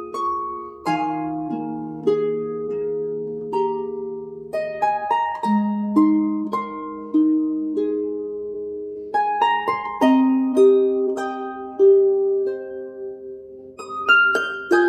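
Background music: plucked string notes that ring on in chords, with new notes struck every second or so.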